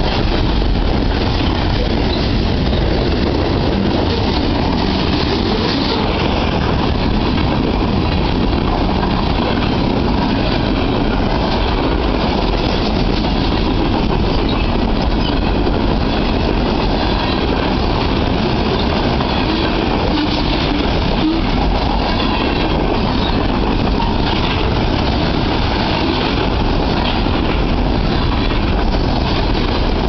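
Freight train cars rolling past: a loud, steady rumble and rattle of steel wheels on rail, with wheels clicking over the rail joints.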